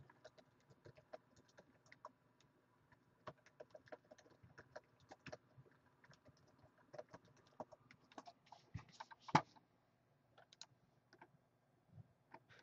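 Faint, irregular clicking of typing on a computer keyboard, with one louder click about nine seconds in.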